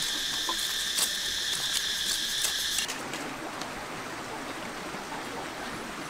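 A high, steady insect chorus with a few sharp clicks, cut off abruptly about three seconds in. An even, steady rushing noise follows.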